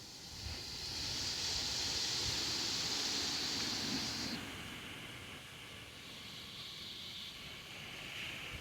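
Wind gusting, a high hissing rush, likely through leaves, that swells about a second in and drops off sharply after about four seconds to a weaker, steady hiss.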